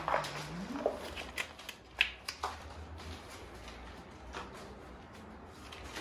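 Potting soil being tipped from a bag into a large plastic plant pot and spread by a gloved hand: rustling and crinkling with a few sharp clicks, the sharpest about two seconds in. A brief rising hum near the start.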